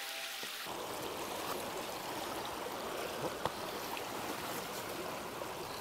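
River water running over rocks: a steady rush of current through a shallow riffle.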